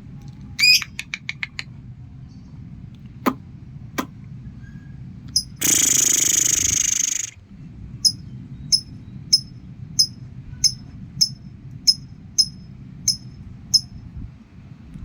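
Violet lovebird chirping: a quick run of chirps near the start, then a steady series of short sharp chirps, about one every two-thirds of a second. Two sharp clicks and a loud harsh noisy burst about two seconds long come in between.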